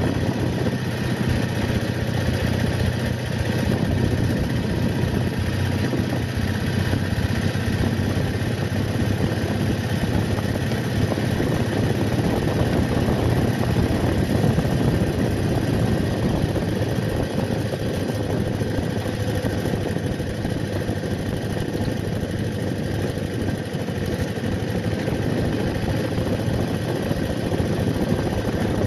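BMW R80RT boxer-twin motorcycle engine running steadily while under way, a constant low drone with road noise over it.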